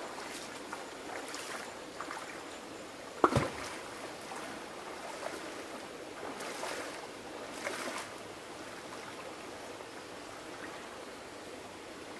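Shallow creek running over stones, with splashing as a person wades through the water. A single sharp hit about three seconds in is the loudest sound, and two smaller splashy swells follow a few seconds later.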